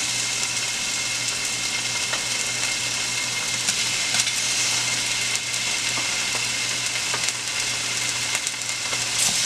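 Seasoned ribeye steaks sizzling steadily in hot avocado oil in a stainless steel pan. A few light clicks of metal tongs are heard as more steaks are laid in.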